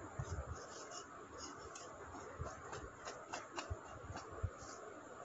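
Dry-erase marker drawing short strokes on a whiteboard: a series of faint scratches and light taps.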